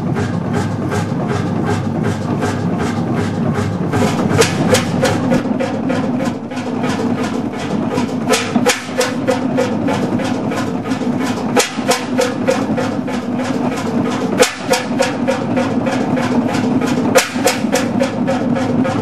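Hundested 45 HP one-cylinder two-stroke hot-bulb (semidiesel) marine engine running, its exhaust beating evenly at about four to five strokes a second. The beats grow louder and sharper about four seconds in.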